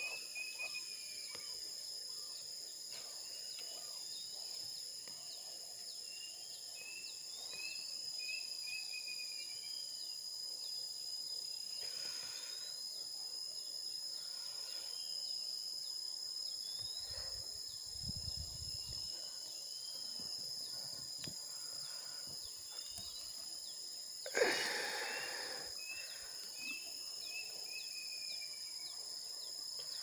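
Outdoor ambience of a steady high-pitched insect drone with many short, repeated bird chirps over it. A sudden loud rustle of handling cuts in late on, as an arm reaches into a hollow wooden nest post.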